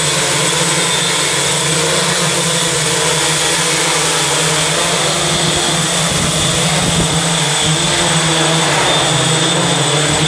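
DroidWorx SkyJib Light X4 octocopter hovering low, its eight electric motors and propellers making a loud, steady drone with high whining tones. Its flight-controller gains are not yet tuned.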